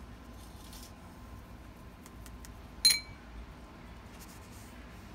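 Faint strokes of a wet watercolour brush on sketchbook paper, with a single sharp, ringing glass clink about three seconds in.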